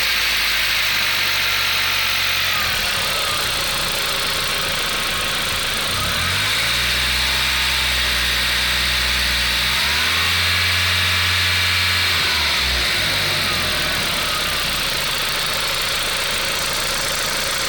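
Volkswagen Golf IV 1.8T (AGU) turbo four-cylinder engine running with a clatter from under the valve cover. The revs are raised and held twice, about six and ten seconds in, then drop back to idle. The owner suspects the chain linking the camshafts; the clatter is there at idle and grows with revs.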